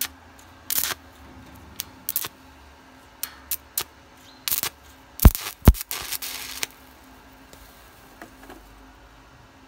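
Stick welding with a small inverter welder: the electrode's arc crackles and spits in irregular bursts, with two loud sharp thumps about five seconds in, and stops about six and a half seconds in.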